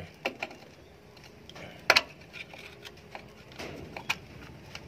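Scattered metal clicks and taps as a stuck rear drum-brake wheel cylinder is worked apart with a screwdriver and fingers. One sharper knock about two seconds in and another just after four seconds.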